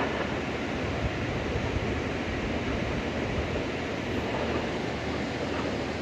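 Steady rushing noise of flowing river water, with wind buffeting the microphone.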